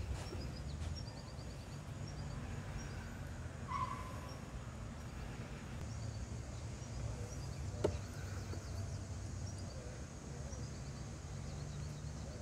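Quiet outdoor ambience: a steady low rumble with faint bird chirps, a short clear note about four seconds in and a single sharp click near eight seconds.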